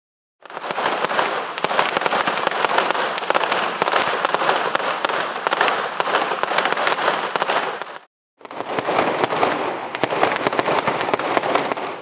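Fireworks crackling and popping in a dense, rapid stream of sharp cracks. It breaks off suddenly about eight seconds in and resumes a moment later.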